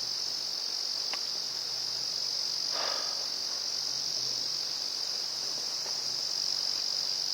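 Steady high-pitched insect chorus, an unbroken even drone, with a small click about a second in and a brief rustle near three seconds.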